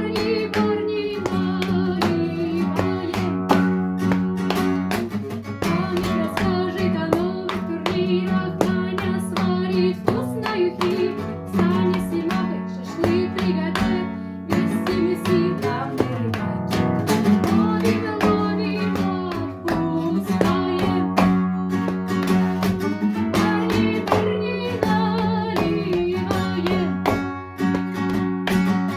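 Acoustic guitar strummed and picked, accompanying a woman singing.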